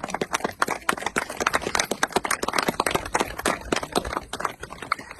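A rapid, irregular series of sharp knocks and clicks, several a second.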